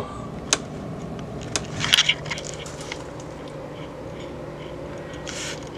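Steady low hum from the magnetic ballast of a failing Philips TLD 18W fluorescent tube fitting. Scattered clicks and two short rustles about two seconds in and near the end come from the camera being handled and moved.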